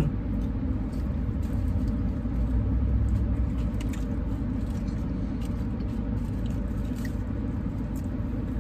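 Steady low rumble of a car heard from inside its cabin, with faint chewing and small clicks of food being handled.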